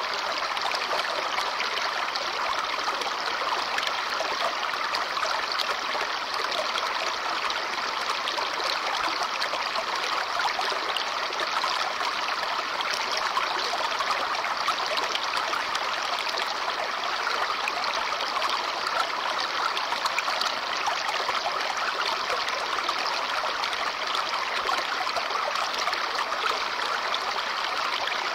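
Babbling brook: shallow water running and trickling over stones in a steady, continuous burble.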